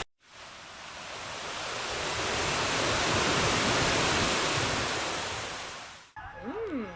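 A waterfall rushing, a steady even roar that swells in, holds, then fades and cuts off about six seconds in.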